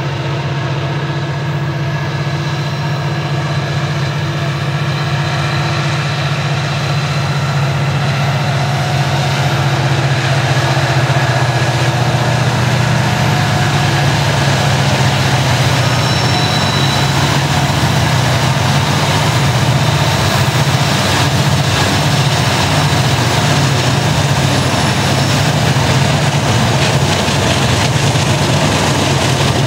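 Lead BNSF diesel-electric locomotives of a loaded coal train, working upgrade, with a steady low engine drone that grows louder as they draw near and pass. From about halfway in, the rumble of wheels on rail and the locomotive noise rise over the drone.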